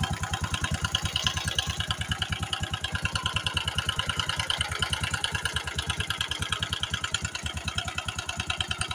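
Bajaj BM 150 single-cylinder four-stroke motorcycle engine idling steadily, with a rapid metallic knock in time with the engine beats. The owner traces the knock to a failed cam chain tensioner, not to the valves, camshaft or connecting rod.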